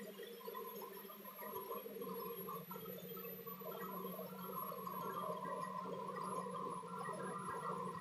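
Diamond core drill cutting a 4-inch hole through a reinforced concrete slab: a steady motor hum under a wavering grinding that grows a little stronger about halfway through.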